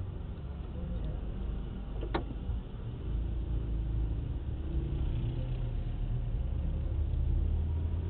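Steady low rumble of a car's engine and tyres heard from inside the cabin as it moves slowly on a wet road. A single short click comes about two seconds in.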